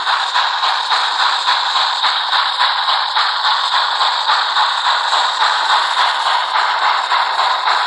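Sound decoder in an H0 Rivarossi Br 96 Mallet steam locomotive model playing steam chuffing through its small onboard loudspeaker, an even rhythm of about three chuffs a second, thin and hissy with little bass.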